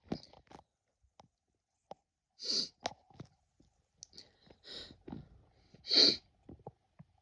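A woman sneezing twice, about two and a half seconds in and again about six seconds in, the second sneeze louder. Short breaths and sniffs come before and between the sneezes.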